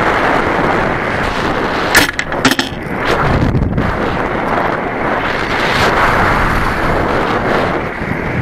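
Wind rushing over the onboard camera of a model rocket in flight. About two seconds in come two sharp cracks half a second apart, as the recovery gear deploys.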